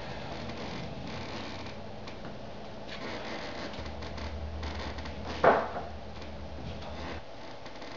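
A person breathing hard with effort during a slow press up to a handstand, with one short, sharp, loud burst about five and a half seconds in.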